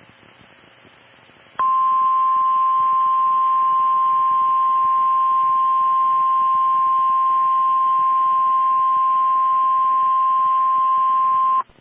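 NOAA Weather Radio's 1050 Hz warning alarm tone: one loud, steady, unbroken tone that starts sharply about a second and a half in, holds for about ten seconds and cuts off. It is heard over faint radio static hiss, and it signals that a weather alert follows, here a severe thunderstorm watch.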